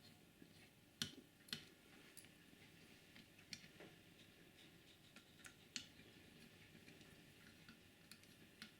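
Faint, scattered clicks and taps of small plastic parts being handled as a model railcar is taken apart by hand, the two sharpest about a second in and half a second later.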